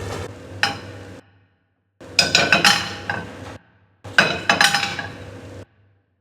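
Clusters of clinking, ringing strikes like cutlery and dishes knocking together. They come in three short runs, each cut off abruptly into silence.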